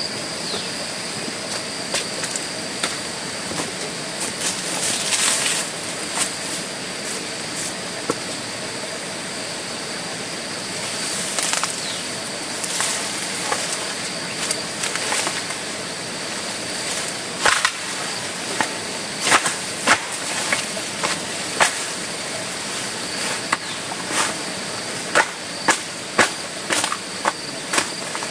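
A steady high insect drone runs under a series of sharp knocks. The knocks are scattered at first and come about one or two a second in the second half.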